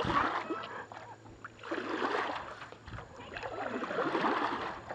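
Canoe paddle strokes in the water, a swishing splash about every two seconds, three times.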